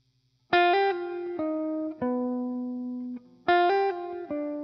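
Background music: a guitar picks out a short phrase of plucked notes. The phrase starts about half a second in and begins again about three seconds later.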